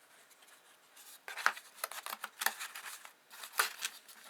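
Cardboard packaging being folded and handled: quiet for about a second, then a few short, sharp scrapes and taps.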